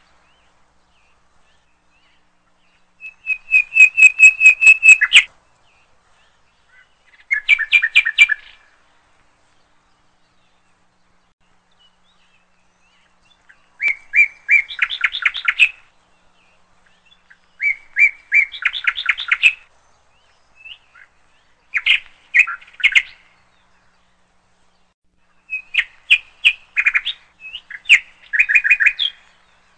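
A songbird singing in about six short phrases of fast repeated high notes, each phrase a second or two long with gaps of silence between them.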